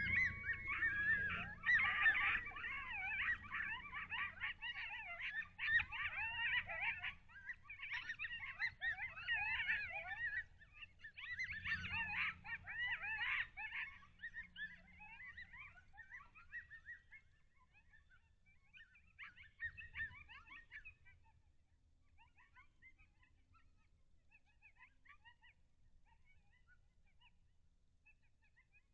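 A pack of coyotes yelping and yipping together in a dense chorus of wavering high-pitched calls. The chorus dies down after about fifteen seconds into scattered faint yips, with one short burst again about twenty seconds in.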